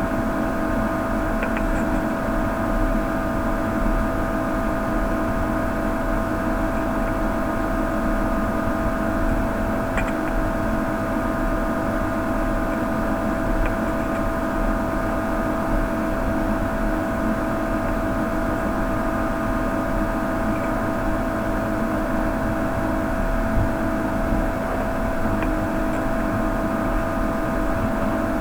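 Steady whirring hum of a small motor with a fixed whine, with a few faint ticks over it.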